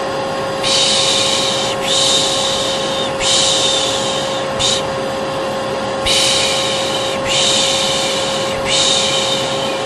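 Vacuum cleaner running with a steady whining drone, overlaid by a person's shushing "shh" sounds, each about a second long, repeated one after another with short breaks.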